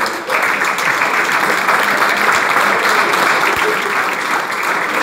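Audience applauding in a room; the clapping swells just after the start and then keeps on steadily.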